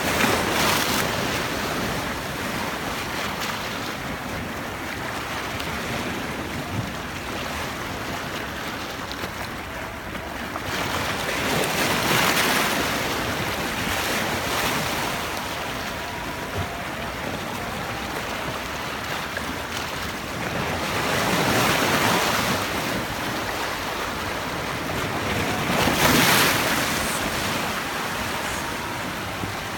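Sea waves washing onto the shore in a continuous rushing surf, swelling louder as waves break about a third of the way in, again about two-thirds in, and loudest near the end.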